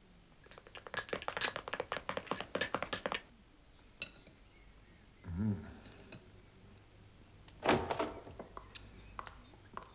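Quick light clicks and knocks of small objects being handled in a small room, a dense run in the first three seconds. A brief low sound comes about five seconds in, and a louder clatter near eight seconds.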